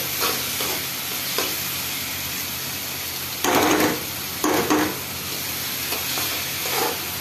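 Chopped onions and tomatoes frying in oil in a steel kadhai, sizzling steadily while a metal spatula stirs and scrapes the pan, with two louder scrapes a little past halfway.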